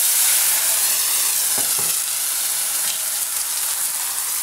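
Water poured into a hot roasting tin of shallots, garlic and carrot in rendered lamb fat, sizzling hard as it hits the fat. The loud, steady sizzle eases a little.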